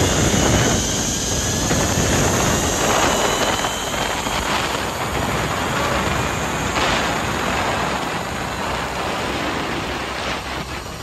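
Wind rushing over a handheld phone's microphone as a rider speeds prone down a long steel-cable zip line, with a faint whine from the trolley's pulleys running along the cable. The rush eases a little toward the end.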